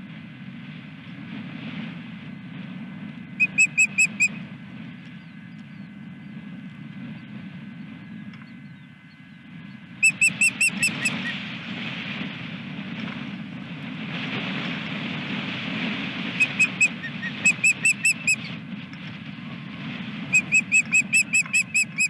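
Osprey calling in bursts of rapid, high whistled chirps, a handful to about ten notes at a time, repeated several times. A steady rush of wind on the microphone runs underneath.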